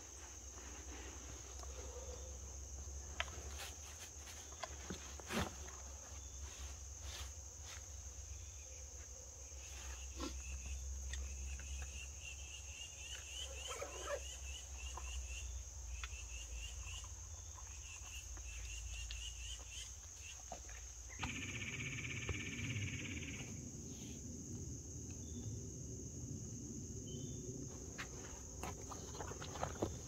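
Outdoor ambience with animal calls: a run of quick, evenly spaced high chirps in the middle, over a steady high tone and a low rumble, with scattered clicks.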